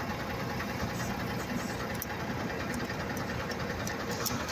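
An engine idling steadily, with a few faint, short clicks over it.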